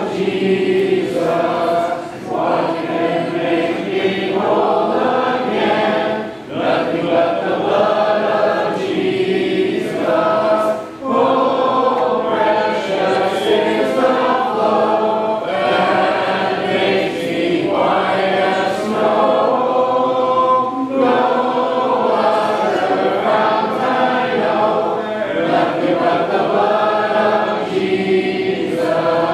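A church congregation singing a hymn a cappella, many voices together without instruments. The singing runs in sustained phrases with brief breaks between lines.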